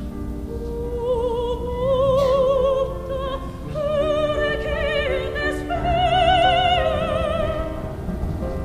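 A voice singing in operatic style with a wide vibrato, moving from note to note and growing louder through the middle, over a steady low rumble.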